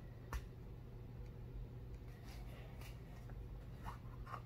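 Faint clicks and taps of a small nesting doll's halves being handled and worked open, with one sharper click about a third of a second in, over a steady low hum.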